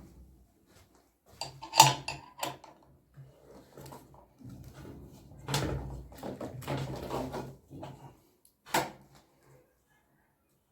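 Several sharp knocks and clattering handling noises, the loudest about two seconds in and another near the end, with rustling between them.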